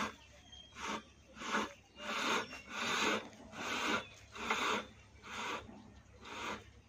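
Rope rasping over a bamboo pole and the well's concrete rim as a submersible pump is lowered hand over hand, one rough stroke about every three-quarters of a second.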